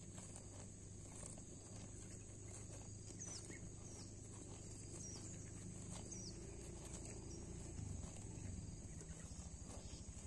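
Cattle grazing: faint tearing and crunching of grass, over a steady high drone and a low hum, with a few short falling bird chirps near the middle.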